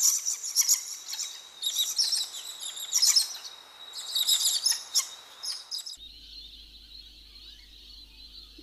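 Small birds chirping and twittering in quick, high calls. About six seconds in, this cuts abruptly to a quieter, steady high hiss with a faint low hum underneath.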